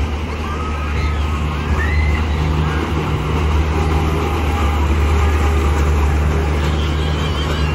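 Fairground ambience: a steady low mechanical hum from the rides, with children's and crowd voices faintly over it.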